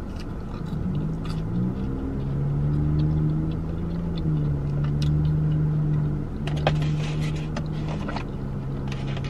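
A woman humming a long, low closed-mouth "mmm" while chewing a chicken sandwich. The hum holds each pitch for a second or two and shifts a few times, over faint chewing clicks.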